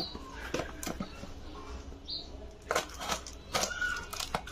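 Small cardboard parcel being handled and its packing tape cut with a snap-off box cutter: irregular rustles, scrapes and light taps, busier in the second half.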